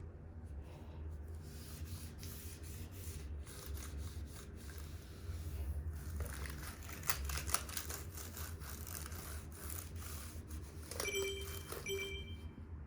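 MacBook keyboard being wiped with a cleaning wipe: keys click and the wipe rubs and scrapes across them, over a steady low hum. Two short tones sound near the end.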